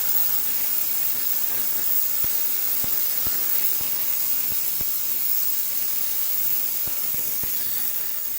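A small rotary tool's polishing wheel run on low against a spot of tarnished brass, giving scattered light clicks and a faint low hum. A steady hiss runs under it throughout.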